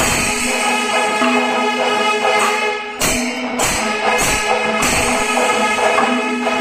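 Kerala temple percussion ensemble playing loudly: maddalam barrel drums and many ilathalam hand cymbals struck together in a steady beat, with sustained ringing tones under the strokes.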